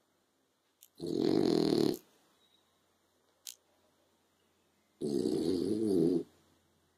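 French bulldog snoring in its sleep: two rattling snores about four seconds apart, each about a second long, with a brief click between them.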